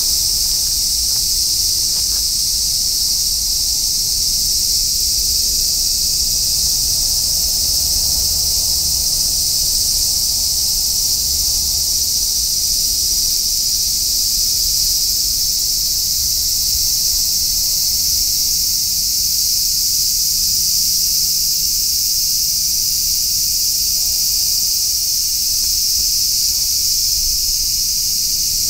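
Dense, steady chorus of insects, a continuous high-pitched shrill that does not let up, over a faint low rumble.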